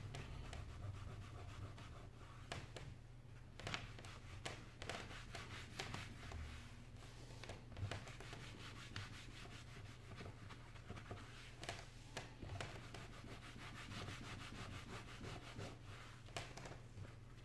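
Cloth wiping and rubbing across the glass of an iPad 4 touchscreen: a faint, continuous rubbing with a few light clicks scattered through it.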